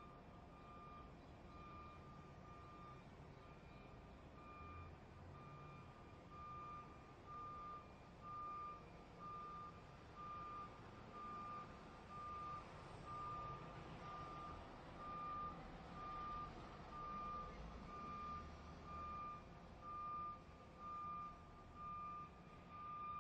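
Truck reversing alarm beeping, one steady single-pitched beep about once a second, growing louder about a third of the way in.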